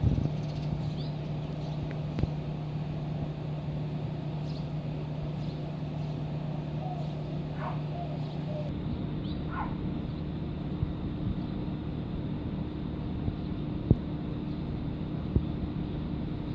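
Steady low mechanical hum over a low rumble, with scattered soft clicks and a few faint chirps about halfway through.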